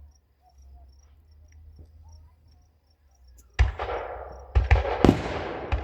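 Crickets chirping in a steady, even rhythm. About halfway through, a firework goes off with a sharp bang and a fading crackle, followed by several more quick bangs.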